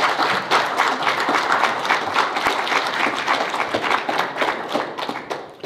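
Congregation applauding with dense clapping that tapers off near the end.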